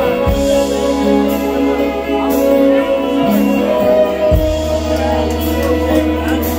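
A live country band plays in a crowded bar: acoustic guitar, fiddle and electric guitar over a bass line that changes note twice.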